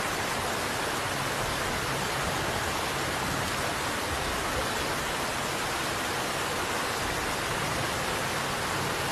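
Water released from the Chaglla Dam spillway rushing down a hillside: a steady, dense rush of water noise that does not let up.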